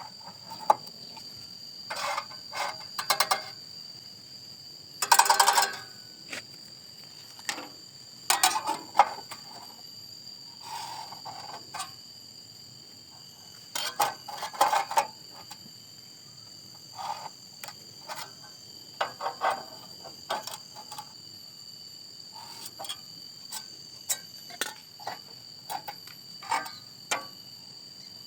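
Hand work on thin sheet metal: irregular clusters of sharp clicks and short crunching, scraping strokes, some with a rapid ratchet-like rattle, over a faint steady high whine.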